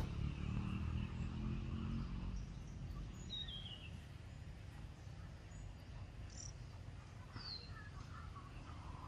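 Outdoor ambience with a low rumble that fades after about two seconds, then a few short bird chirps, one falling in pitch a few seconds in and a couple more later on.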